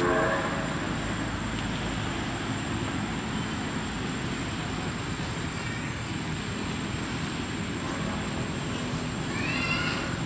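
Steady background hiss with a thin, constant high tone. About nine and a half seconds in comes a short, high, rising-and-falling squeal from a long-tailed macaque.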